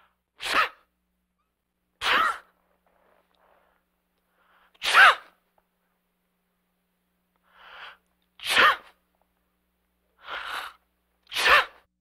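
A man sneezing: five separate, sharp sneezes a couple of seconds apart with silence between them. Before each of the last two there is a softer, shorter sound.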